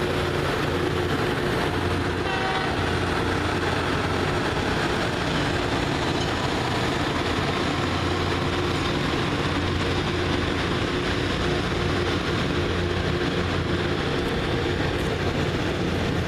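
Loram rail grinder train passing, its diesel engines running with a steady heavy hum under a dense wash of machine noise that holds at one level throughout.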